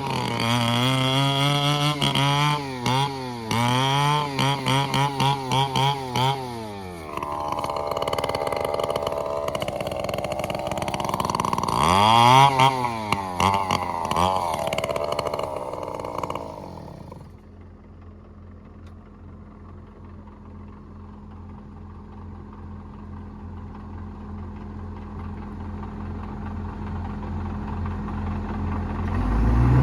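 Komatsu D68ESS bulldozer's diesel engine labouring under the load of a heavy log, its pitch rising and falling repeatedly. About seventeen seconds in it drops suddenly to a quieter, steady low running note, which slowly grows louder toward the end.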